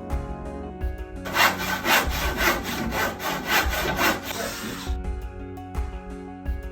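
A saw cutting with quick back-and-forth strokes, about two a second, starting a little over a second in and stopping about a second and a half before the end, over background guitar music.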